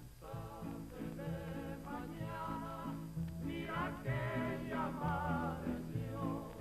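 Background music: a melody with vibrato over a bass line.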